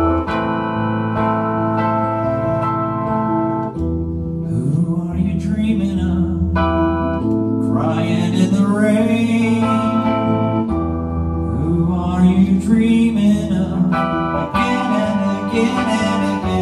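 Keyboard music with sustained organ-like chords changing every three or four seconds, and a sliding, wavering melodic line over them twice, from about four seconds in and again in the later part.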